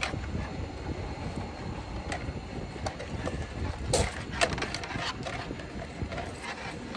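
Scraping and knocking clatter over a steady low rumble, with a cluster of sharper knocks about four seconds in.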